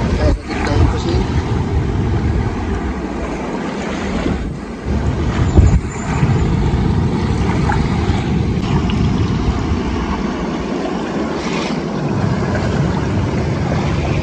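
Loud, steady rush of fast canal water churning down a weir (jhal) through its open gates, with a brief thump about five and a half seconds in.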